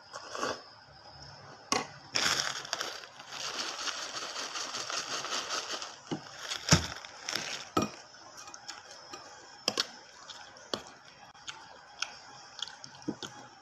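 A person eating close to the microphone: crunching and chewing, with sharp clicks and clinks scattered throughout and a longer run of dense crunching in the first half.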